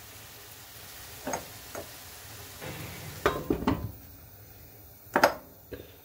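Vegetables frying in a pan, sizzling steadily, with several clinks and knocks of the metal pan lid against the pan; the loudest clank comes about five seconds in.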